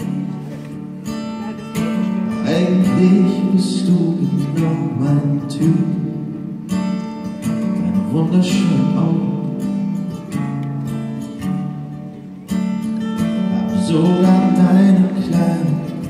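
Acoustic guitar strummed steadily, playing the intro of a live pop song before the vocals come in.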